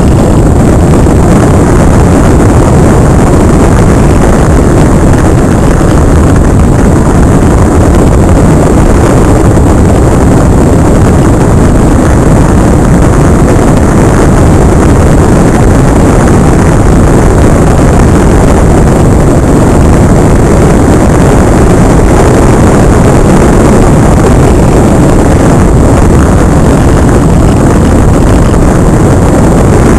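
Loud, steady rush of airflow buffeting the onboard camera's microphone on a Multiplex Cularis model glider in flight, a deep unbroken noise with a faint, steady high whine above it.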